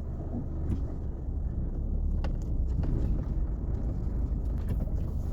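Car cabin noise while driving: a steady low rumble of engine and road, with a few light ticks.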